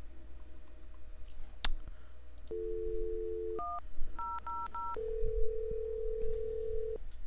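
Cisco IP Communicator softphone going off-hook with a click, a dial tone for about a second, then four DTMF keypad tones dialing extension 1000: one tone, then three quick identical ones. Then about two seconds of ringback tone as the call rings out.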